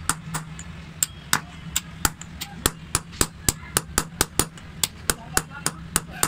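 Hand chasing of a copper tray: a small hammer tapping a steel punch into the metal in sharp metallic taps, about three to four a second, with a brief pause about half a second in.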